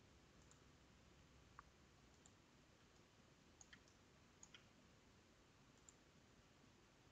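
Near silence: faint room tone with a handful of faint computer mouse clicks, some in quick pairs.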